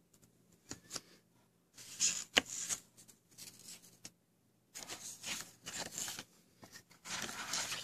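Wooden coin presentation box being opened, with light clicks and one sharp click from the lid. Then several bursts of rustling and crinkling as a certificate in a plastic sleeve is handled.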